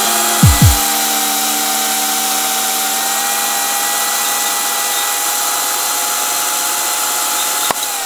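Makita UC3541A corded electric chainsaw running at a steady full speed, the bar held clear of the wood. Two short low thumps come about half a second in, and near the end there is a click as the motor starts to wind down.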